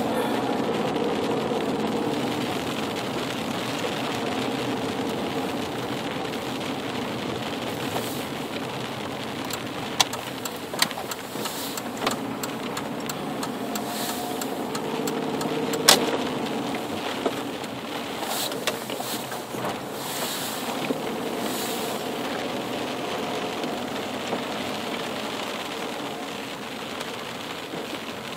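Car driving along with steady engine and tyre noise, broken by a few sharp clicks, the loudest just past halfway.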